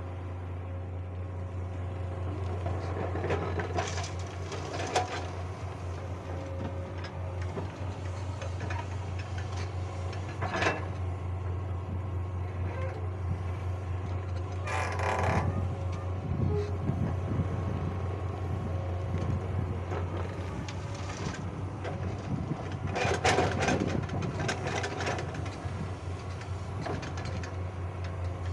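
Komatsu hydraulic excavator's diesel engine running steadily under load as it digs soil and loads a dump truck. Several short clanks and rattles come from the bucket and from soil dropping into the steel truck bed.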